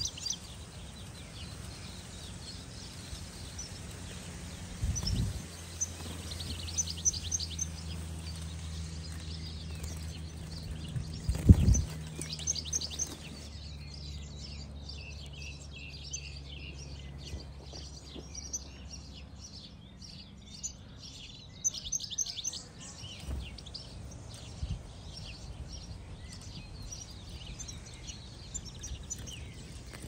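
European goldfinches chirping in quick twittering runs, on and off. There are two dull thumps, the louder one about a third of the way in, and a low steady hum underneath through the middle.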